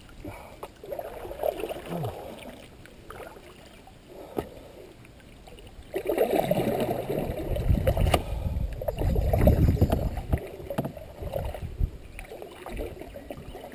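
Wooden paddle strokes pulling through the water beside a skin-on-frame canoe, with water swishing along the hull. From about six seconds in, a loud low rumble rises and holds for several seconds before easing off.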